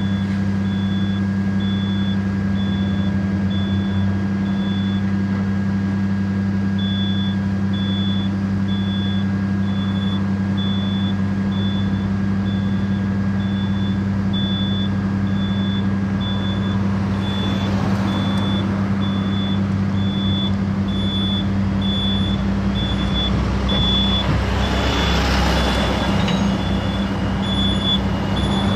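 Steady diesel engine drone of a slow-moving wheel loader and dump truck, with a high warning beeper sounding about once a second throughout. In the second half the engine and tyre noise of passing traffic swells twice, loudest near the end.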